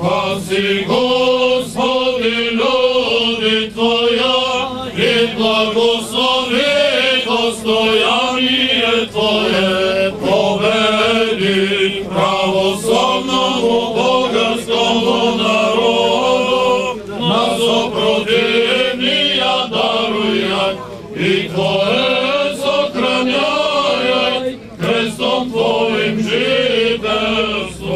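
Eastern Orthodox clergy chanting a hymn, male voices singing together in sustained liturgical chant, with brief breaths about 21 and 25 seconds in.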